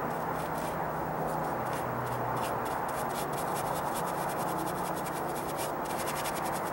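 A brush scrubbing and dabbing Dryvit stucco patch material onto a textured stucco column, a continuous scratchy rubbing made of many quick strokes.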